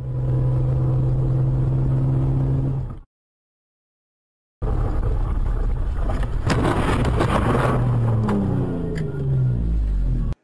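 Vehicle engine and road noise in two short clips: first a steady engine note that stops abruptly, then after a gap louder driving noise with a cluster of sharp knocks about two to three seconds in, followed by an engine note falling in pitch.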